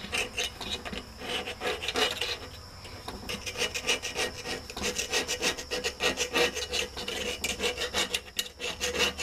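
A screwdriver scraping old gasket residue out of the metal gasket channel of a wood stove insert, down to bare metal, in quick repeated rasping strokes. There is a short lull about a third of the way in.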